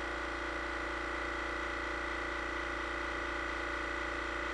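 Fortress 10-gallon ultra-quiet air compressor running steadily, its motor and pump refilling the tank after kicking on; a constant even hum that measures about 76 decibels at arm's length.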